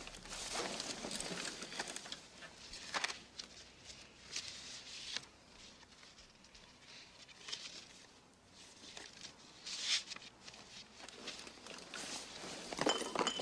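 Bedclothes rustling and shifting in irregular soft swells, with a short sharp click about three seconds in and another about ten seconds in.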